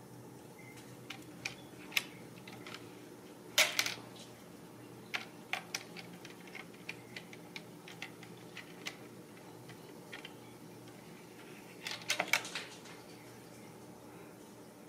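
A clear plastic hamster ball knocked and pushed about by a kitten: scattered light plastic clicks and taps, with two louder rattling clusters, about three and a half seconds in and about twelve seconds in.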